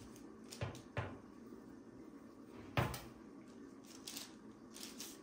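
Metal baking tray being set down and shifted on a glass countertop: a few light knocks, the loudest nearly three seconds in.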